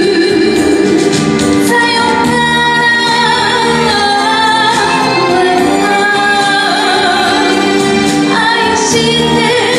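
A woman singing a Japanese kayōkyoku ballad into a microphone over instrumental accompaniment, with long held notes.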